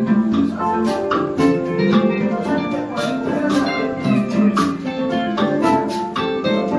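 A live band playing: guitars and an electronic keyboard over a steady beat of sharp percussive hits, about two a second.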